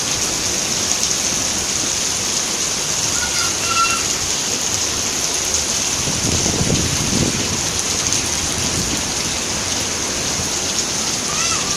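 Steady heavy rain falling, an even hiss of rain on surfaces, with a brief low rumbling noise about six seconds in.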